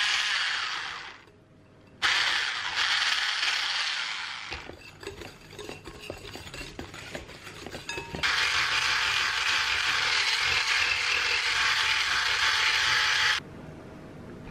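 Electric whisk attachment on a hand blender running in a glass bowl, beating egg yolk and sugar, with a whir and the whisk rattling against the glass. It runs in short spurts at first, with lighter clicking in between, then runs steadily for about five seconds before cutting off suddenly near the end.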